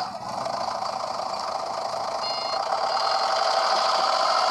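Forklift sound effect: engine running steadily, with one short beep a little past two seconds in.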